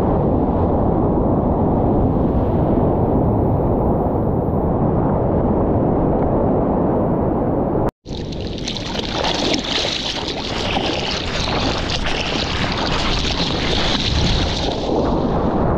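Wind and rushing water on a surfboard-mounted action camera's microphone as the board rides a wave: a dull, steady rumble. After a sudden cut about eight seconds in, a brighter hiss of water spraying and splashing close to the camera, easing off near the end.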